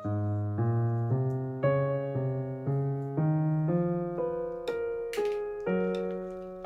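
Background piano music: a slow melody of single notes, about two a second, over lower held notes. A few brief rustles come near the end.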